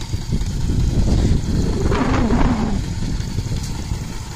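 Scale-model Case steam traction engine running under way, its engine chugging steadily, with a short louder rushing noise about two seconds in.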